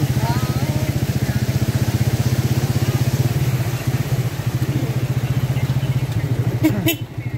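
Motorcycle engine of a tricycle running steadily at low speed with a fast, even putter. A short sharp knock sounds near the end.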